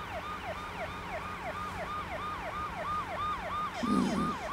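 Ambulance siren in a fast yelp, sweeping up and down about three times a second over a steady low hum. Near the end the man on the stretcher gives a short moan.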